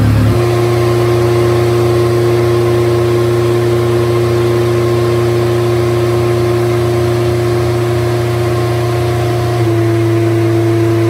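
High-compression Honda K24 inline-four race engine running at a steady, held speed on a chassis dyno, as in an early break-in run. Its tone holds level, with one small shift near the end.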